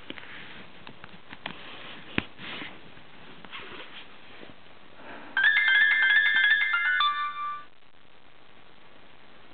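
iPhone ringtone playing through the phone's own loudspeaker for about two seconds: a quick run of bright melodic notes that cuts off. It comes after some faint handling taps and one sharp click. The ringtone plays normally even though game and media sound is silent.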